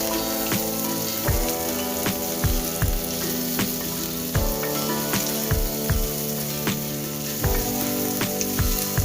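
Garlic and onion sautéing in hot oil in a pan, a steady sizzle. Background music with a steady beat plays throughout.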